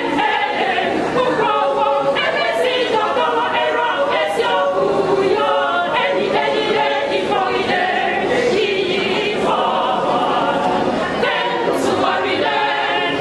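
A large mixed choir of men and women singing together unaccompanied.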